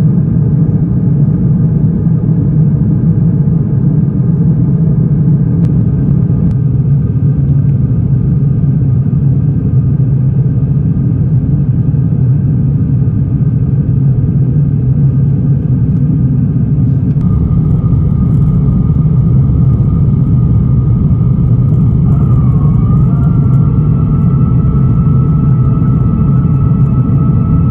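Airliner cabin noise on an Airbus A350-1000: a loud, steady rumble of its Rolls-Royce Trent XWB engines and airflow, with a faint steady whine above it. The sound changes abruptly twice.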